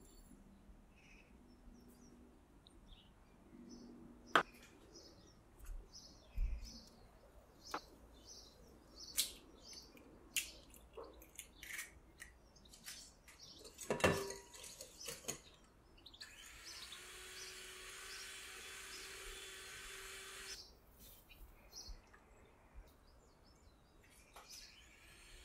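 Ingredients going into a glass mixing bowl: scattered light taps and clinks, with one louder knock about halfway through. Past the middle comes about four seconds of steady hiss with a low hum, and faint short chirps sound now and then.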